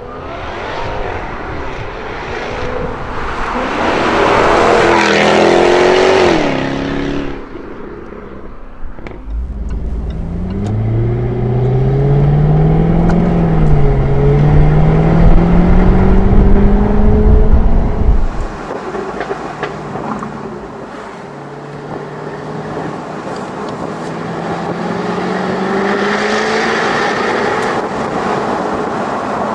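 Jaguar F-Type Project 7's supercharged V8 driving past, swelling as it approaches and then cutting away about seven seconds in. Then heard from inside the cabin accelerating hard, with a deep rumble and a climbing engine note. About eighteen seconds in it eases off and pulls more gently, its note rising slowly.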